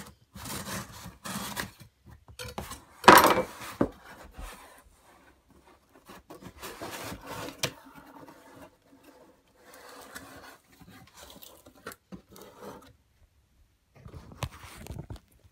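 Cardboard shipping box being opened by hand: the flaps and lid scrape and rub against each other in short bursts, with one louder burst about three seconds in.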